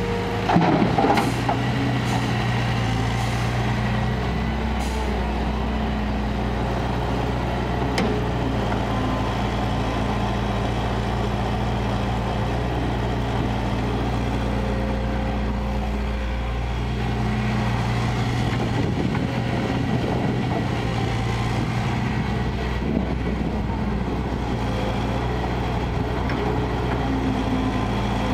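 Kobelco crawler excavator's diesel engine running steadily as the machine swings and digs. About a second in, a brief clatter of soil dropping from the bucket into a dump truck's bed.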